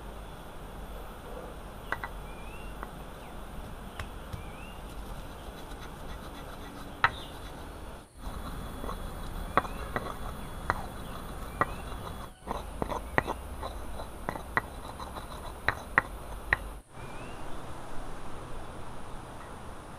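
Steady high buzz of insects, with short bird chirps here and there. Sharp taps and knocks come now and then, and in a quick run through the middle and latter part.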